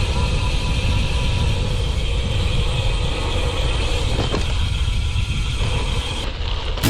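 Road traffic noise: a steady low rumble of vehicles on the road.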